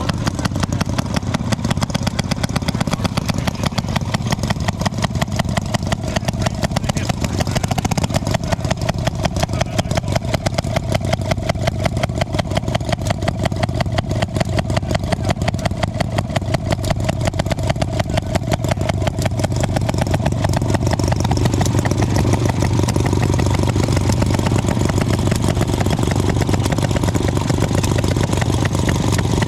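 Small antique gasoline engine running steadily, with rapid, even exhaust pops. A faint steady whine sits over it through the middle, and the running gets a little louder near the end.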